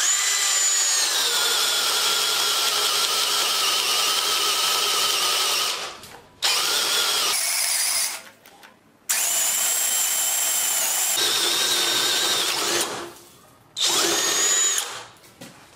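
Tonfon 20V cordless drill whining as it bores a 40 mm spade bit into wood. The pitch drops as the bit bites. It stops and restarts three times, with short silences between runs. Such pauses under heavy load are the tool's sensitive overload protection cutting out.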